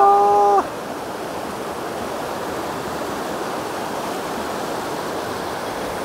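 Mountain stream water rushing steadily, an even wash of noise with no breaks.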